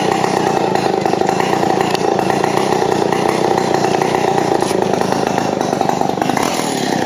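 A chainsaw running steadily, a continuous drone that holds one pitch without revving up or down.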